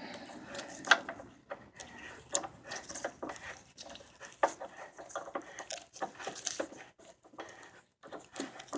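Irregular metallic clicks and clinks of hand tools on car bolts as the bolts holding a bumper reinforcement are loosened, with a sharper knock about a second in and another at about four and a half seconds.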